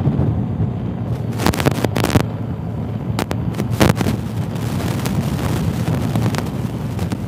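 BMW R 1250 GS Adventure's boxer-twin engine running at cruising speed on a gravel road, under steady wind buffeting on a helmet-mounted microphone and tyre rumble on the gravel. A handful of sharp knocks come through at irregular moments.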